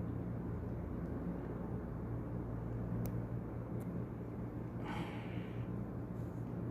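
Steady low hum with no speech, broken by one sharp click about three seconds in and a short hiss about five seconds in.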